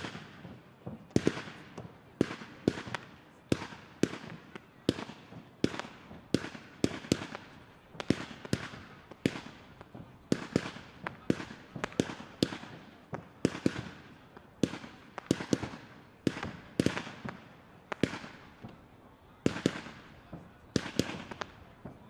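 Professional display fireworks firing in a rapid, uneven run of sharp bangs, about one and a half a second, each trailing off in a short echo.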